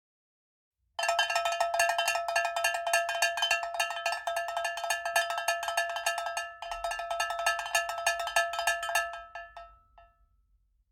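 A rapid run of metallic strikes with a bell-like ringing tone, starting suddenly about a second in, breaking off briefly past the middle, then dying away near the end.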